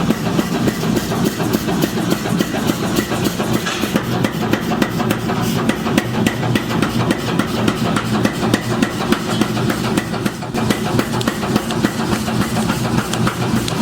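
Machinery running steadily with a continuous low hum, and a fast stream of small metallic clicks and knocks over it.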